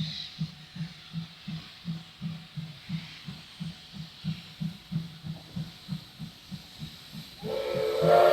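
The whistle of a JNR C12 steam locomotive sounds near the end, a loud chime of several pitches at once. Before it there is a steady low rhythmic pulse, about three beats a second.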